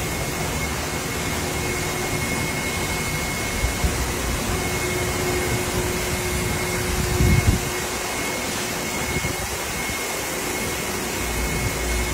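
Steady whirring machine noise with a faint constant high whine and a low hum, and a brief low thump about seven seconds in.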